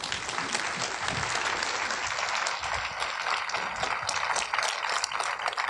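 Audience applauding, many hands clapping in a steady patter that thins a little near the end.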